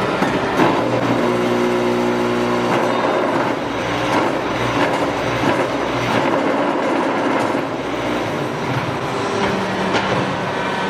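QTF4-25 hydraulic concrete block-making machine running: a loud, steady clattering machine noise with scattered metallic clanks, and a hum lasting about a second and a half, starting about a second in.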